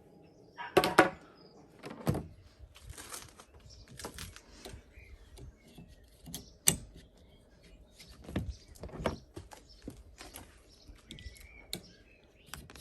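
Irregular clicks, taps and knocks of a flat wiper blade being handled, the loudest about a second in.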